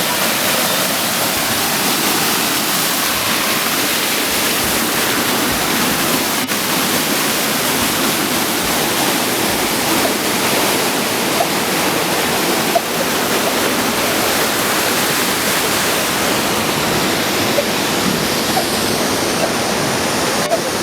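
Pistyll Rhaeadr waterfall and the Afon Rhaeadr below it: a loud, steady rush of falling and tumbling water.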